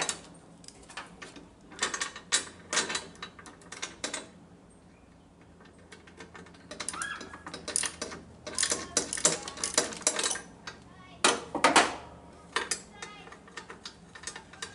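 Socket ratchet wrench clicking in several bursts of rapid clicks as nuts are worked loose, with light metal clinks of the tool.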